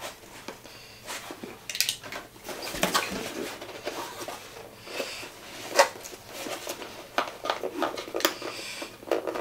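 A small cardboard box and its paper packaging handled and worked open by hand: irregular rustling, scraping and sharp little clicks and crinkles.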